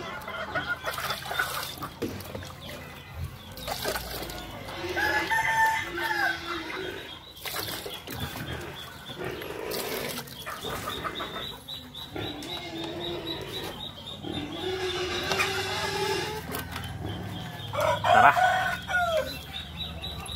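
Backyard chickens: a rooster crows twice, about five seconds in and again near the end, with hens clucking between the crows. Water poured from a plastic dipper splashes into a bucket midway.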